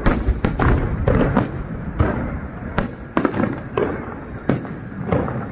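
Aerial firework shells bursting overhead, a fast, irregular run of about a dozen sharp bangs over five seconds.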